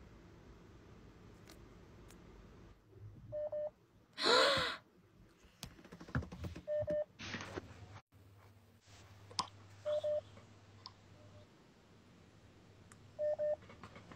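Phone live-streaming app's call-connecting tone: a short double beep repeating about every three seconds, with a brief, louder burst of noise about four seconds in and a few faint clicks.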